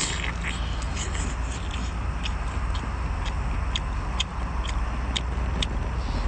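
Eating cooked lobster by hand: short, sharp clicks and crackles of shell being bitten and peeled, with mouth noises, scattered about two a second over a steady low rumble.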